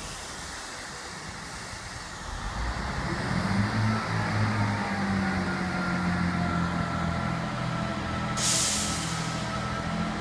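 Class 158 diesel multiple unit running into the station, its diesel engine growing louder as it nears, with a faint whine that falls in pitch as it slows. About eight seconds in comes a short hiss of air from the brakes.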